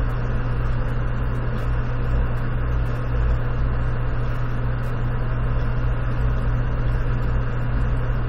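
Steady low electrical hum with a background hiss, unchanging throughout.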